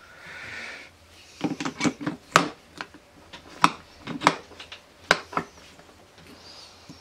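Metal parts of a Derbi Euro 3 moped engine clinking and knocking as a gear is fitted into the aluminium crankcase: a second of rubbing, then a run of irregular sharp metallic clicks.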